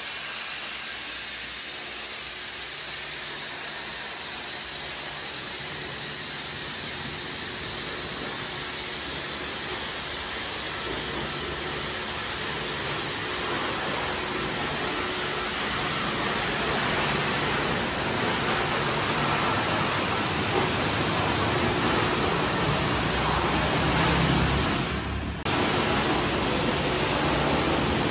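High-pressure washer jet spraying water onto a car's underbody: a steady hiss of spray that grows slowly louder, breaking off for a moment near the end.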